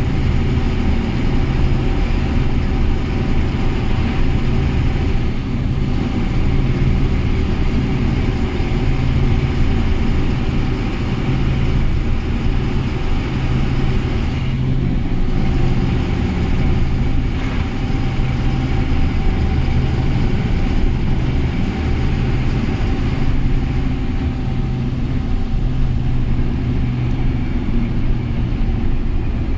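Heavy truck's diesel engine running steadily at cruising speed, heard from inside the cab with road and tyre noise.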